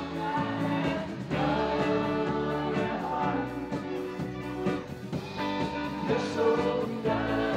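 A small live band playing, with electric guitar, drums and a man singing.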